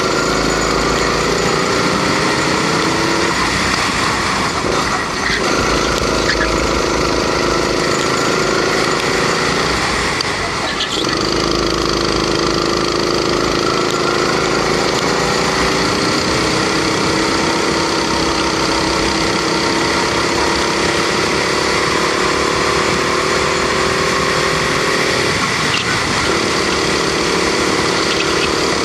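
Rental go-kart's Honda 270cc four-stroke engine at racing speed: the revs climb slowly along each straight and drop away three times as the driver lifts off for corners, over a steady rush of wind.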